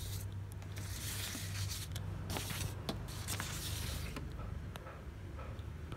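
Epson inkjet printer's motors humming low and steady just after printing a sheet, with paper rustling near the start and again about two to four seconds in as the printed page is handled.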